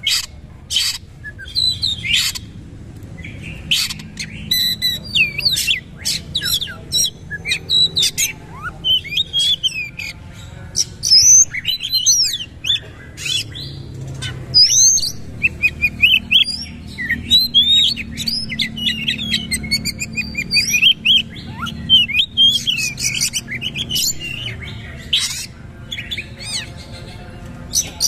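Oriental magpie-robin singing continuously: a varied, loud run of whistled notes that glide up and down, mixed with many sharp, clipped notes fired in quick succession.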